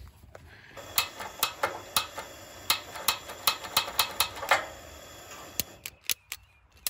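Long-nose butane lighter clicked over and over at a propane camp-stove burner, about four clicks a second over a steady hiss, then a few more scattered clicks near the end. The lighter keeps failing to light the burner.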